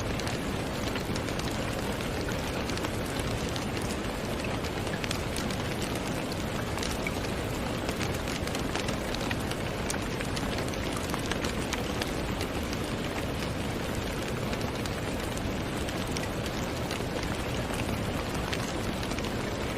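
Steady rain falling, a dense even hiss with many individual drops ticking through it.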